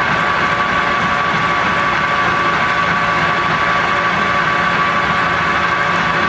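Sebastian A-8 14" x 60" lathe running under power with the spindle turning: a steady mechanical hum with a fixed high whine.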